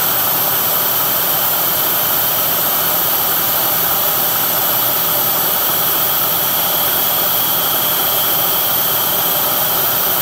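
CNC-converted Bridgeport milling machine running steadily, its half-inch three-flute carbide end mill spinning at about 2,500 rpm in a bore in hot-rolled steel. A steady hiss with a faint thin high whine.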